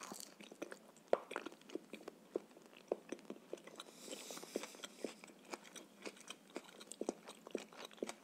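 A person chewing food close to a clip-on microphone: irregular wet mouth clicks and smacks.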